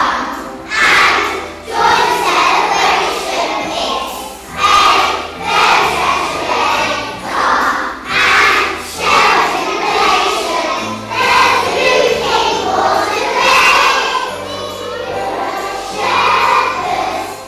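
A group of young children singing a song together, in phrases of a second or two, over instrumental accompaniment with a low bass line.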